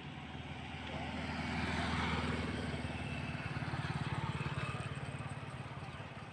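Motor vehicle engine running, growing louder over the first two seconds and fading away near the end, as of a vehicle passing.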